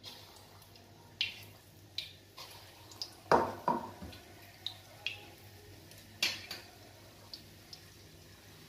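Metal kitchen utensils clinking and knocking about a dozen times, loudest twice in quick succession about three seconds in, over faint sizzling of dal batter deep-frying in oil in an iron kadhai.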